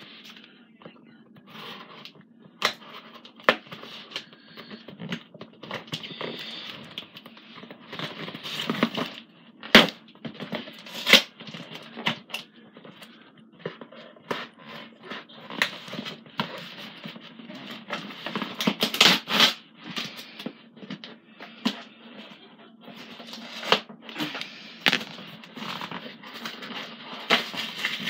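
Hands working at a mailed package to get it open: irregular rustling, scraping and crackling of the packaging, broken by sharp clicks and knocks.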